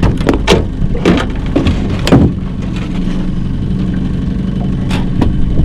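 A boat's outboard motor idling steadily with a low hum, with several sharp knocks and clatters, most of them in the first couple of seconds.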